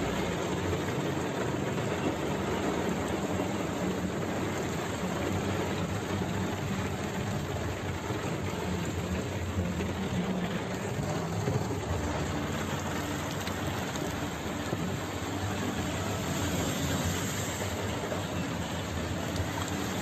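Steady cabin noise of a car driving on a wet road: tyre hiss and a low engine hum, without a break.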